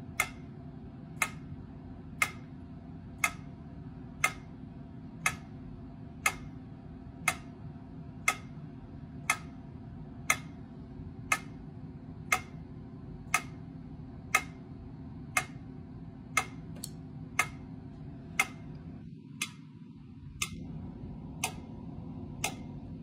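Metronome clicking steadily at about one click a second, over a low steady hum. A few extra clicks fall between the beats about two-thirds of the way through.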